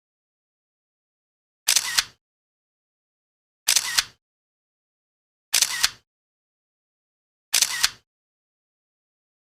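Four short hissy sound-effect bursts, about two seconds apart, with dead silence between them.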